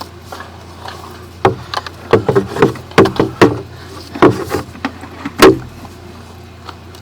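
About a dozen irregular sharp knocks and clunks from sewer inspection equipment, packed between about a second and a half and five and a half seconds in, over a steady low hum.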